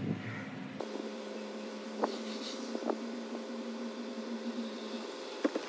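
Car idling, heard from inside the cabin: a low, steady hum with a couple of faint clicks.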